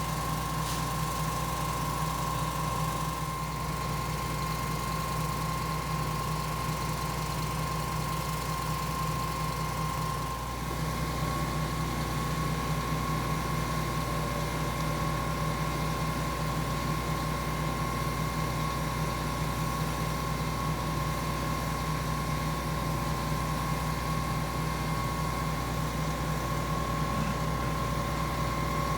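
Diesel engine of a Putzmeister 47-metre truck-mounted concrete pump running steadily under load, with a constant whine over the low engine rumble.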